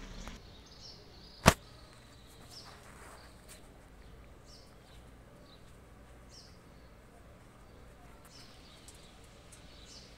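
A single sharp click about a second and a half in, the phone camera knocking against the telescope eyepiece as it is lined up, then a low steady outdoor background with faint, scattered high chirps.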